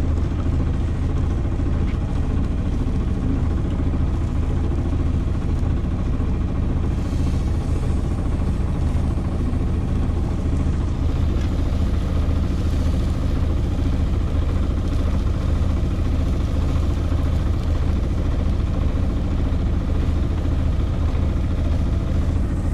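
A C&C 30 sailboat's inboard engine running at a steady speed, a constant low drone with no change in pitch.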